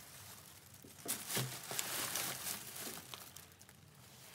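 Thin plastic shopping bags rustling and crinkling as they are set down on a kitchen counter, with a few light knocks of the goods inside, starting about a second in and fading toward the end.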